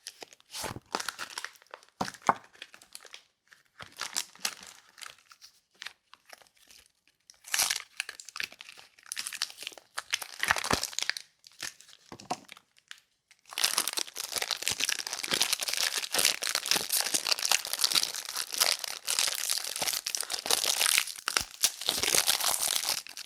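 Soap bars being unwrapped by hand: their wrapping crinkling and tearing in short, separate bursts with light taps, then crinkling steadily without a break from a little past halfway.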